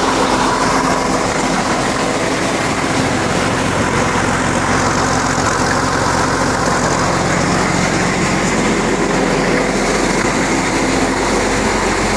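The engine of a 1950s Koehring crane running steadily at a constant speed.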